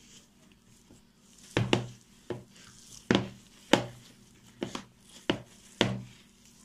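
Hands kneading soft poğaça dough in a plastic bowl: about eight irregular dull thumps as the dough is pressed and pushed against the bowl, starting about a second and a half in.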